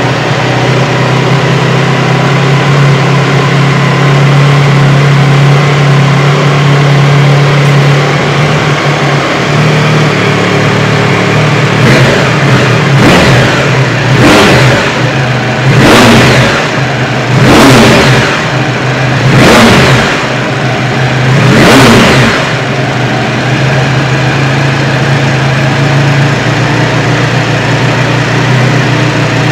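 Honda RC213V-S's V4 engine idling just after start-up, then revved in a run of about six quick throttle blips, each rising and falling, before settling back to a steady idle.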